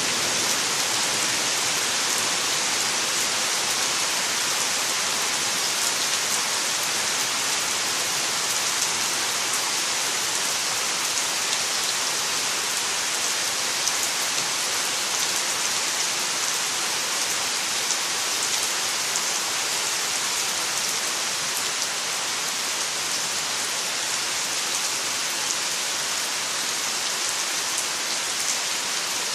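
Steady summer rain pouring down on trees, leaves and ground, an even hiss with scattered drop ticks.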